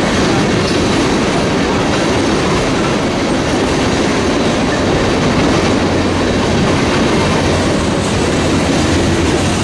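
Mixed freight cars of a manifest train (covered hopper, gondola, tank cars and boxcars) rolling past: a steady, loud noise of steel wheels running on the rails.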